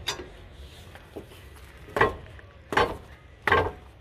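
Three hard knocks about three-quarters of a second apart, with a lighter tap about a second in. They come from a long bar and socket on a car's front hub nut being struck to tighten the nut.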